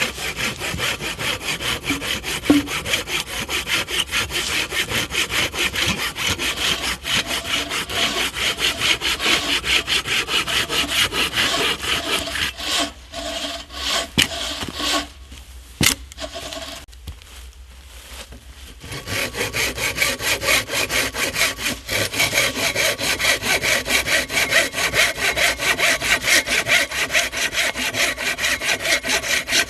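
Hand saw cutting through a wooden pole in rapid, even back-and-forth strokes. The sawing stops for several seconds around the middle, with a couple of sharp knocks, then resumes.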